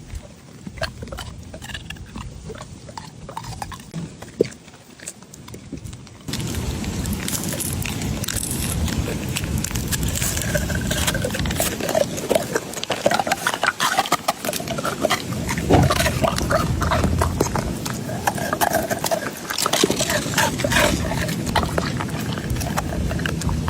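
A dog making snuffling, pig-like vocal noises rather than barks. The sound jumps louder at an edit about six seconds in.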